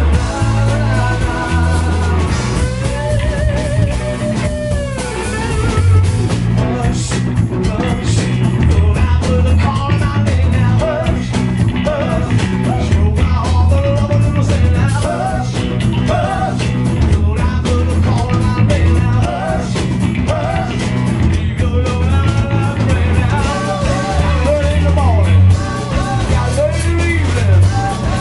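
Live rock band playing: lead vocals over two electric guitars, electric bass and drums, with a steady pulsing bass line.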